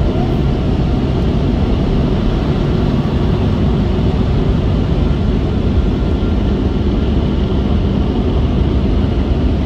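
Automatic car wash air dryer blowing steadily and loudly onto the car, heard from inside the cabin: the drying blow-off stage at the end of the wash.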